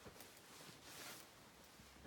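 Near silence: room tone with faint soft rustling.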